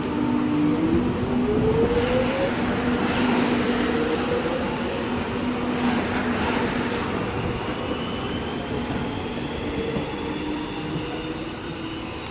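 Melbourne X'Trapolis electric train pulling away from the platform, its traction motors whining upward in pitch as it accelerates, with a few sharp wheel-on-rail clicks. The sound grows fainter toward the end as the train moves off.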